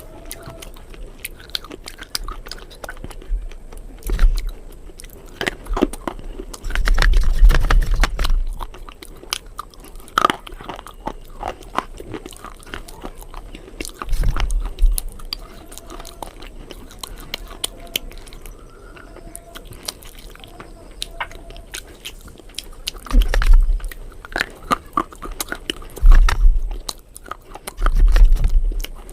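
A person biting and chewing something hard and crunchy close to the microphone: steady crackly chewing broken by several loud crunching bites spread through the stretch.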